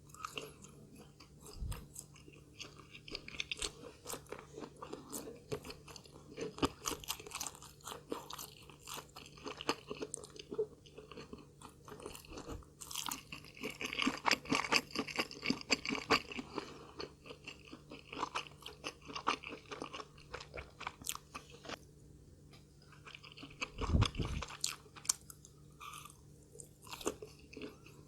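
Close-miked chewing and crunching of food, a dense run of wet clicks and crunches, busiest about halfway through, with a low thump a little before the end.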